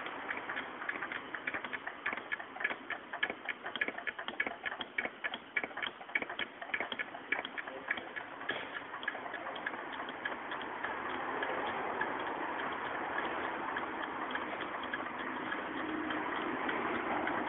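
Rapid, regular ticking clicks, several a second, over a steady background hiss; the clicks fade out about halfway through.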